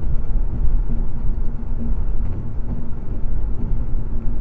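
Steady road noise heard inside a car cruising at highway speed: a low drone of tyres and engine with a faint constant hum.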